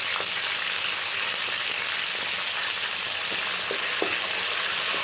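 Green chillies and curry leaves sizzling steadily in hot oil in a kadai with mustard seeds and dals, stirred, with a few light knocks against the pan.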